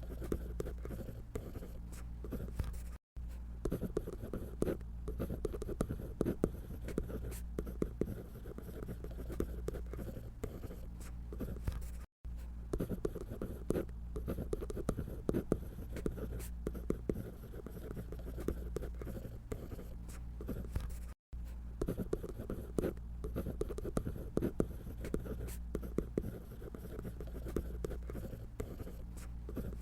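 Scratchy strokes of a drawing tool on paper, short and irregular as a figure is drawn, over a steady low hum, with three very brief dropouts.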